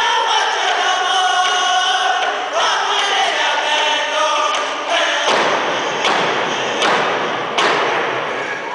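Group of men singing a powwow hand-drum song in unison while beating frame hand drums. A little over halfway through, the voices drop back and four hard drum beats stand out, about one every three-quarters of a second.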